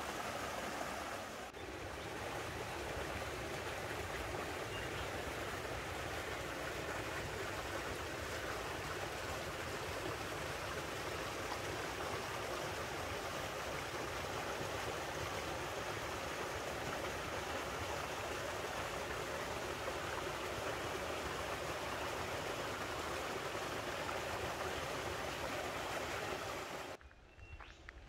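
Creek water running over small cascades: a steady, even rush that cuts off suddenly about a second before the end.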